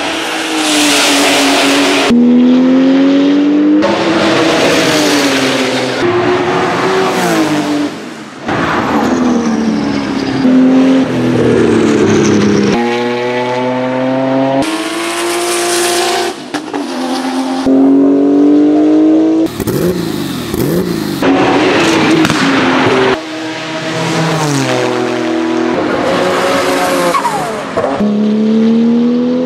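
Turbocharged Porsche 911-based race cars' flat-six engines revving hard, rising and falling in pitch through gear changes as the cars accelerate and pass by. It comes as a string of short clips, with sudden cuts from one car to the next every second or few.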